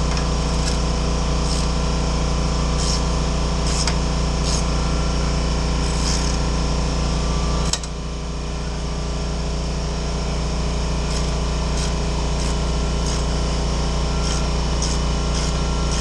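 A steady mechanical hum from a running motor, with short scratchy clicks scattered on top; the hum drops a little in level about eight seconds in and slowly builds back.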